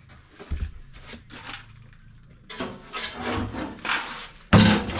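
An aluminium fuel tank being handled and set down: scattered knocks and scraping, with a loud thump about four and a half seconds in.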